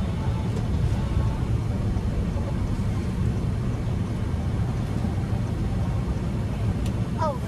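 Steady road and drivetrain rumble heard from inside a Honda car's cabin while it drives along.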